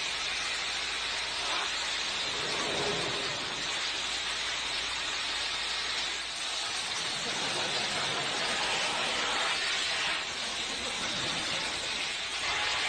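High-pressure water jet spraying in a steady, even hiss.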